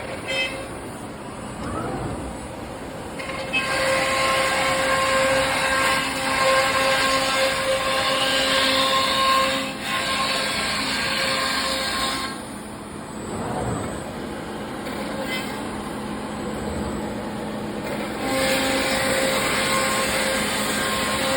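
Thermwood CNC router running and cutting, a steady whine over cutting noise. It gets louder about four seconds in, drops back near the middle, and rises again near the end.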